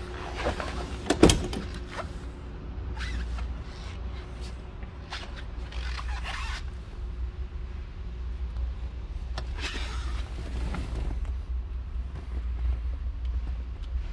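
A steady low hum under scattered rustling and knocking as someone moves about a car's interior. A sharp knock about a second in is the loudest sound.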